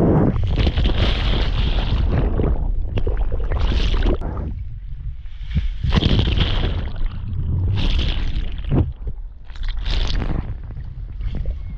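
Wind buffeting the microphone in a heavy low rumble, with surf washing in on the beach in repeated hissing swells every second or two.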